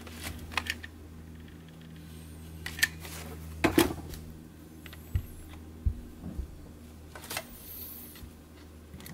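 Scattered clicks, taps and knocks of brush-seal strips and a clear acrylic dust-shoe base being handled and pressed into place, the loudest a double knock a little under four seconds in. A steady low hum runs underneath.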